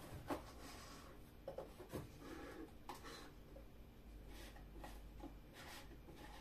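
Faint rustling with several light clicks and knocks of small craft items being handled and searched through by hand.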